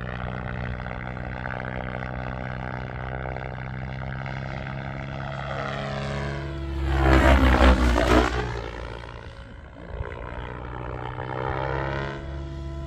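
Radio-control model aircraft in flight: a steady pitched drone from its motor and propeller, then a fast close pass about seven seconds in that swells loud and drops in pitch as it goes by.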